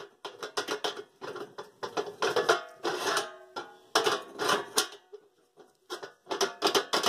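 Metallic clinking and rattling in about five quick bursts, each with a short ring: a rusty square steel tube with a tacked-on spring latch being worked against the sheet-steel body of a cut-open jerry can.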